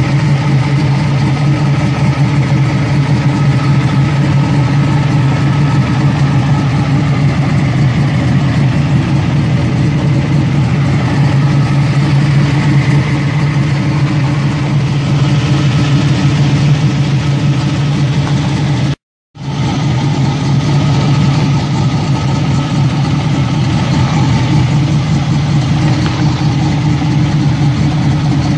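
Chevrolet Camaro Z28's V8 engine idling steadily, heard close up from under the car, broken by a brief dropout about two-thirds of the way through.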